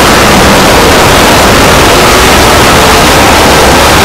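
An extremely loud, harsh, distorted noise effect pushed to full volume, filling every pitch evenly and steady with no breaks.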